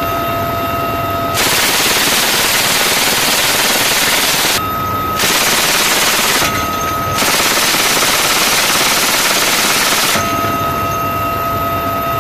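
Helicopter door-mounted heavy machine gun firing three long bursts of automatic fire, with short gaps between them. A steady high whine is heard in the gaps and after the last burst.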